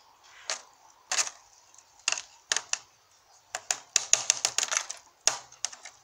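Sharp clicks and tinkles of shattered microwave door glass as an arrow is jabbed into it by hand: a few separate clicks, a quick run of them about halfway through, then a few more near the end.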